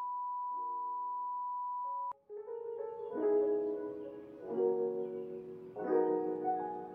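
A steady 1 kHz test tone, the kind that goes with television colour bars, plays over faint soft chords and cuts off with a click about two seconds in. Soft background music with sustained piano-like chords then starts, a new chord about every second and a half.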